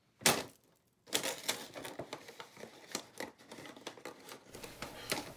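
Paper covering of a punch-box hole being punched through: a short tearing burst, then a run of rustling, crinkling and small clicks as fingers dig through the torn paper inside the hole.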